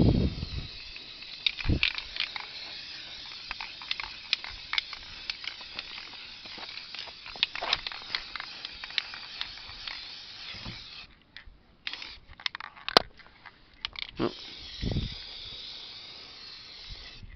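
Aerosol spray can of Rust-Oleum Painter's Touch 2X orange paint hissing as it sprays, with small clicks and spits through it. The hiss stops about two-thirds of the way through and starts again a few seconds later, and low thumps from handling come at the start and near the end.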